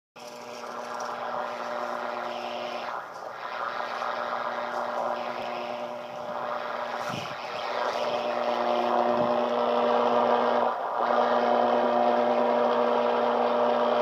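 Radio-frequency interference from a plasma TV, heard through a portable receiver on the 160-meter band as a steady buzz of several tones over hiss. It grows louder as the tuned loop antenna is held near the house's power service and dips briefly twice.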